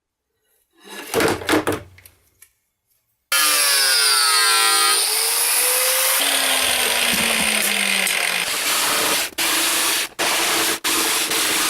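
A few handling clicks and rubs, then about three seconds in a power tool starts abruptly and runs steadily. It cuts out briefly three times near the end.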